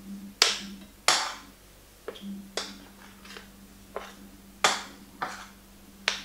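A metal teaspoon clicking and scraping against a ceramic bowl of raw beef meatball paste: about ten sharp clicks at uneven intervals. A faint steady hum runs underneath.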